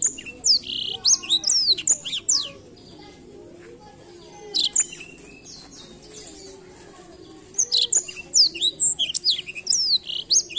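Black-throated canary (blackthroat) singing in rapid bursts of high, sweeping whistled notes. A long burst opens, a short phrase follows, and a second long burst starts about halfway through and runs on.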